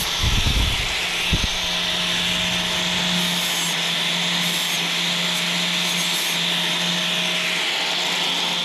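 Power tool grinding and sanding steadily on an aluminium motorcycle crankcase during repair, with a few low knocks in the first second or so as the work is handled.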